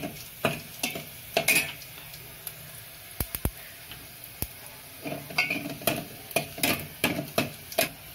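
Garlic cloves and mustard seeds sizzling in hot oil while a metal ladle scrapes and clinks against the metal pot in quick strokes; the stirring thins out to a few taps about two seconds in and picks up again about five seconds in. The garlic is being fried golden for a tempering.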